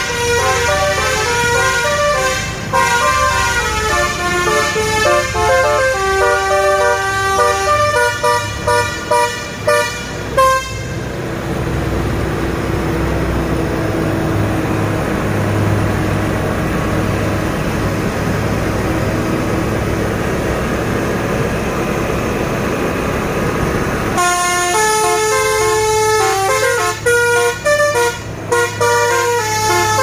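A truck's multi-tone telolet horn (Basuri type) toots a quick, dangdut-style melody of many short notes, which stops about ten seconds in. A truck's diesel engine then runs steadily while it climbs past. The horn melody starts again near the end.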